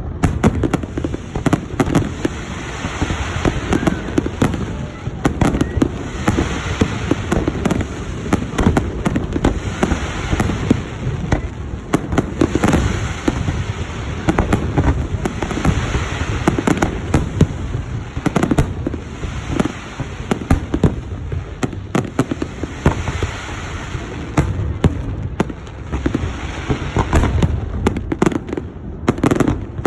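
Fireworks display: a continuous barrage of booming shell bursts mixed with crackling.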